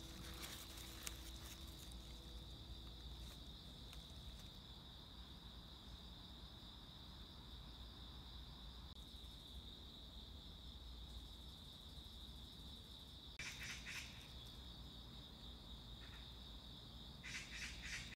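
Faint, steady, high-pitched insect chorus outdoors, with a low background rumble. Two brief louder bursts of rustling noise break in, about three-quarters of the way through and again near the end.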